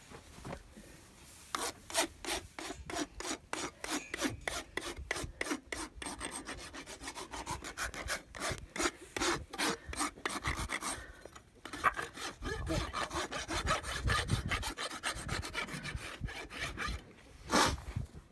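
Farrier's hoof rasp stroked across a young horse's hoof wall: a long run of rasping strokes, about three a second, with a short pause about two-thirds of the way through.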